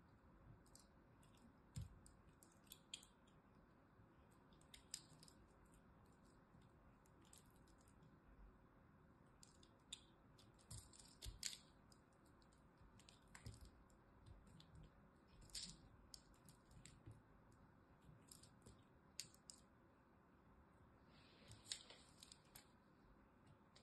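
Utility knife blade carving a pressed cube of crunchy, crumbly soap: faint, crisp crunches and clicks as flakes and crumbs break off, in irregular bursts with short pauses.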